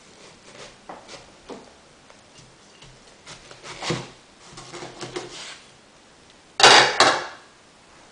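Kitchen knife sawing through a hami melon's rind and flesh on a plastic cutting board: a run of short cutting strokes, then a louder noisy burst in two parts about six and a half seconds in as the melon comes apart into halves.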